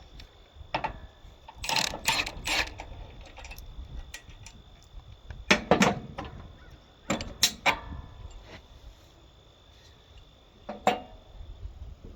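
Hammer blows on a metal part of the high-striker, being flattened back out, in irregular groups of one to three strikes with pauses between.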